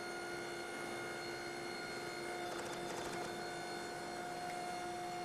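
Hydraulic forging press running with a steady, even hum while a hot steel billet sits between its dies.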